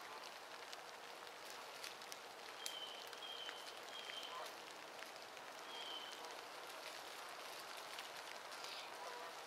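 Light rain pattering on icy leaf litter and branches, an even hiss with many small scattered ticks. A few short high whistled notes sound about three and six seconds in.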